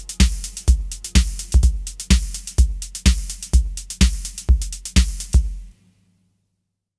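Outro music: a steady electronic drum-machine beat, a deep kick about twice a second with hi-hats and bass, which stops a little before six seconds in.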